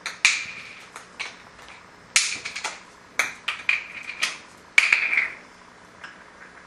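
Plastic bottle cap clattering and skittering on the floor as an African grey parrot flicks it with its beak. There are sharp clicks in about five bursts, several ending in a short rattle as the cap spins before settling.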